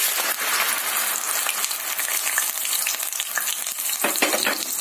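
Wet onion, garlic and ginger paste sizzling and crackling hard in hot oil in a kadhai, starting suddenly as the paste goes into the oil.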